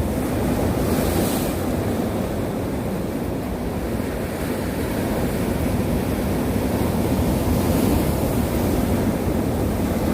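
Winter sea surf: waves breaking and washing in continuously, in a steady low rush, with a brighter hiss as a wave breaks about a second in and again near eight seconds.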